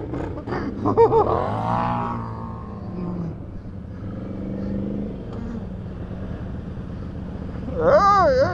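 ATV engine revving, its pitch falling away about a second in as the throttle closes, then running lower and steadier; near the end it revs again with the pitch wavering quickly up and down.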